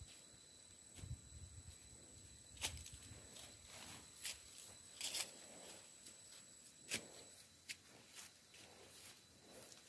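Faint rustling and footsteps in grass and leaves, broken by a scattering of sharp snaps and clicks as a person carrying a sack moves about under a coffee tree.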